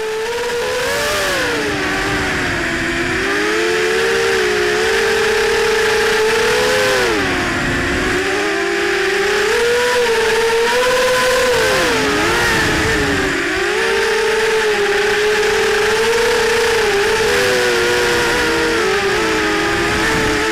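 Shen Drones Krieger FPV quadcopter's electric motors and propellers whining, heard through its onboard camera microphone. Several tones rise and fall together as the throttle changes, with bursts of wind rumble on the microphone, strongest about eight and twelve seconds in.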